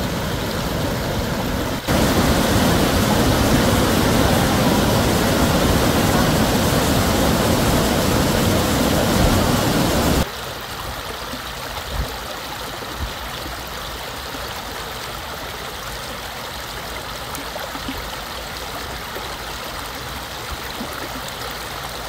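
Mountain stream rushing over rocks: a loud, steady rush of water. About ten seconds in it cuts off abruptly, leaving a quieter steady hiss.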